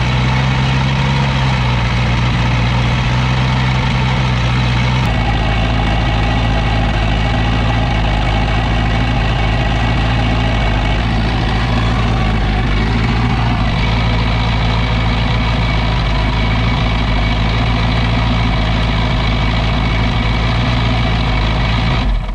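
LS V8 engine in a jet ski hull idling steadily, run out of the water on a garden hose for cooling and warmed up. Its tone shifts about five seconds in, and the sound cuts off abruptly at the very end.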